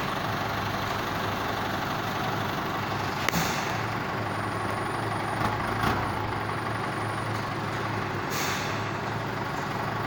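An engine running steadily: a low hum under an even hiss. A sharp click comes about three seconds in, and a few small knocks follow around six seconds.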